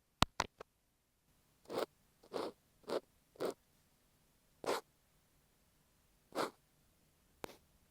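Close-up ASMR trigger on an earphone microphone: a few quick clicks, then about six slow, separate scratchy strokes rubbed across the microphone.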